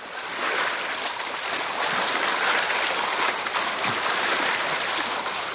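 Small waves washing onto a river shore among driftwood, a steady rushing noise that swells and eases a little.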